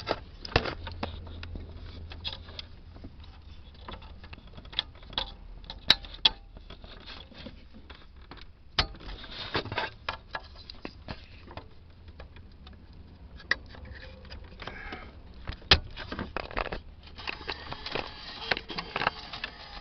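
Irregular clicks, taps and light knocks from handling a car radio unit and plugging in its wiring connectors.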